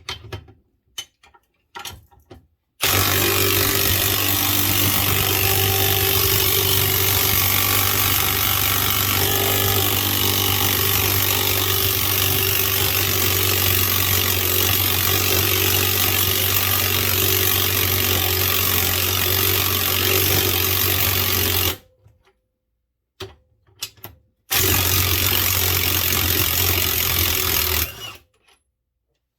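Ryobi 18V One+ HP brushless 1/2-inch high-torque impact wrench hammering on a grade 8 fine-thread bolt and nut. There are a few light knocks first, then one long continuous run of nearly twenty seconds, a short stop, and a second run of a few seconds. The threads of both the bolt and the nut are stripping under it rather than the bolt breaking.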